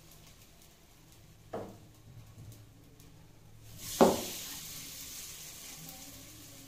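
A spoonful of semolina batter is dropped into a hot oiled cavity of an appe pan: a sharp knock of the spoon against the pan about four seconds in, then steady sizzling of the batter in the oil. A softer knock comes about a second and a half in.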